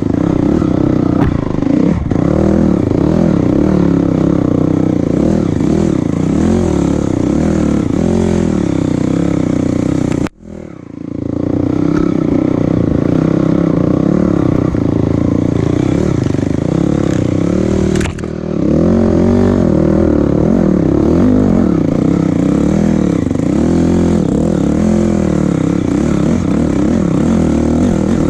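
A motor vehicle's engine running steadily under load, its pitch rising and falling continually as the throttle changes, with some clattering. The sound cuts out for a moment about ten seconds in, then resumes.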